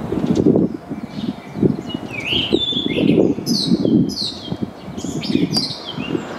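Male blue rock thrush singing: a run of clear whistled phrases built of falling notes, beginning about a second and a half in and repeating several times. A loud low rumble runs underneath the whole time.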